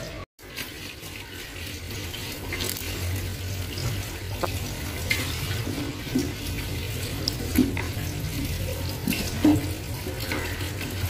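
Water running and splashing in an aluminium pan of live prawns, a steady wash of water with scattered small splashes and clicks. There is a brief dropout just after the start.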